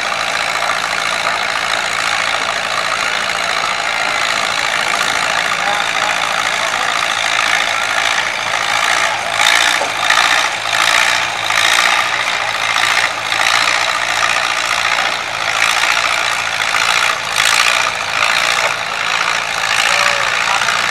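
Antique farm tractor engine running steadily under load as it pulls a weight-transfer sled, its sound swelling and dipping unevenly in the second half.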